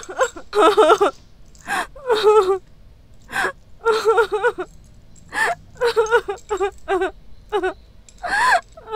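A person crying in short, high-pitched, gasping sobs, about a dozen broken bursts.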